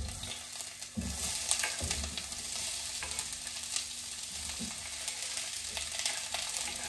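Chopped onion scraped with a knife off a wooden chopping board into hot oil in a stainless steel pan, sizzling as it lands, with short scrapes and taps of the knife on the board. The sizzle strengthens about a second in as more onion drops into the oil.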